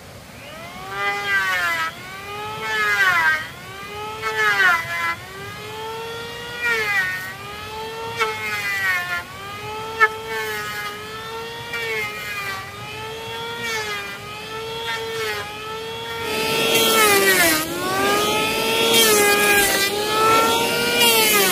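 Handheld electric power tool working wood, its motor whine sagging in pitch and recovering again and again as it takes load. About sixteen seconds in it gets louder and a harsher rasping noise joins the whine.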